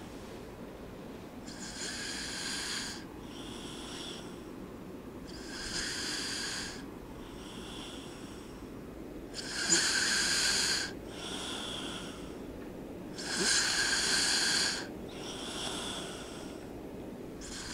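A person snoring in sleep: breathy snores in a steady rhythm, each breath cycle a stronger snore followed by a weaker one, repeating about every three and a half to four seconds. The two cycles in the middle are the loudest.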